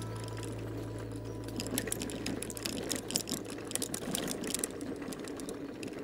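Off-road electric scooter riding over a gravel track: a steady low motor hum, with the tyres crackling over the stones and the scooter rattling over bumps, busier from about two seconds in.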